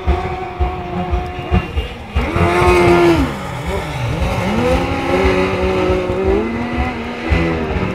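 1000cc sidecar speedway outfits racing, their engines running hard together. About three seconds in, one engine note drops steeply and then climbs again, holding a high pitch before easing off near the end.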